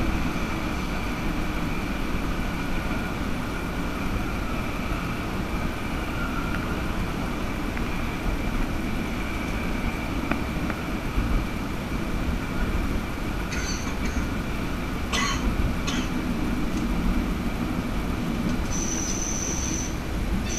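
Bybanen Stadler Variobahn light-rail tram running along its track, heard from inside the driver's cab: a steady rumble of wheels and drive with a faint high whine. Brief high-pitched wheel squeals come in the second half, the longest near the end.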